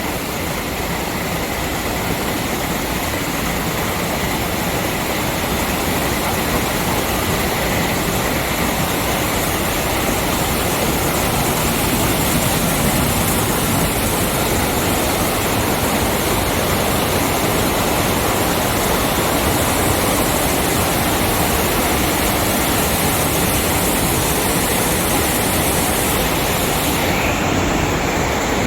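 Rubber hose braiding machines running together: a loud, steady mechanical noise with no pauses.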